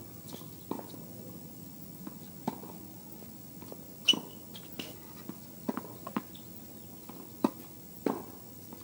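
Tennis ball in a rally: sharp pops of racket strikes and ball bounces on the court, about eight in all at uneven intervals, the loudest a little after four seconds in.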